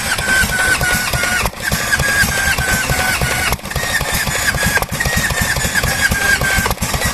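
Vintage Yanmar K2 diesel engine running with a rapid low chugging beat, over which a thin high tone steps up and down in pitch about four times a second; the sound breaks off briefly a few times.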